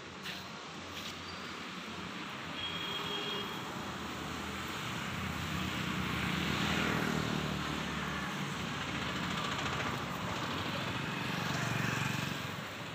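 Street traffic: motor vehicles passing, the loudest about six to seven seconds in and another near the end.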